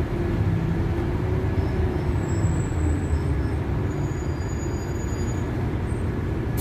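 Cabin noise inside a LiAZ 5292.71 diesel city bus driving at steady speed: an even low rumble of engine and road.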